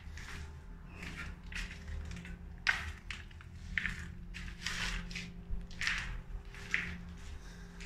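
Footsteps crunching on a gritty, debris-strewn concrete floor, about two steps a second.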